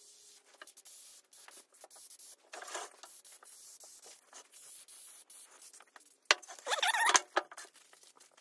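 Aerosol spray can hissing as it sprays the inside of a sheet-metal drawer. Near the end there is a louder scrape as the metal drawer is slid and turned on the bench.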